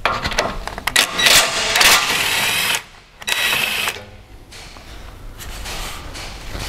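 Cordless drill-driver spinning out the size-10 bolts of a car's underbody skid plate: a whining run of nearly three seconds, a short pause, then a second, shorter run, followed by quieter noise.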